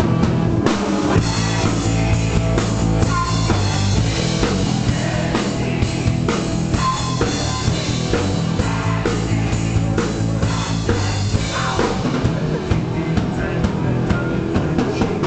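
Live band playing rock music: electric guitars and a drum kit, loud and continuous.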